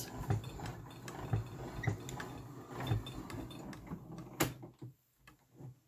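Hand-cranked manual die-cutting and embossing machine feeding a plate and embossing-folder sandwich through its rollers: a run of irregular clicks and low knocks, with one sharp click about four and a half seconds in. The folder is fed in slightly tilted, which keeps it from making a popping noise.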